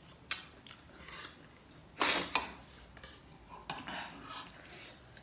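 Eating sounds close to the microphone: scattered clicks of utensils on dishes, with one louder, short noisy burst about two seconds in.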